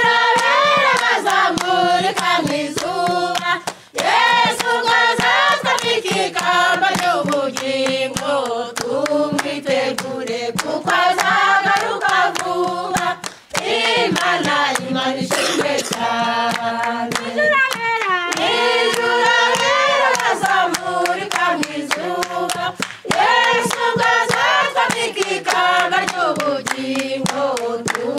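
A group of women singing a traditional Kinyarwanda hymn of praise, with steady hand clapping along. Two brief breaks in the singing come between phrases.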